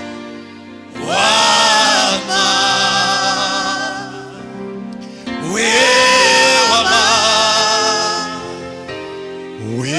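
Slow gospel worship song: a singing voice slides up into a long held phrase about a second in and again past five seconds, over sustained accompanying chords.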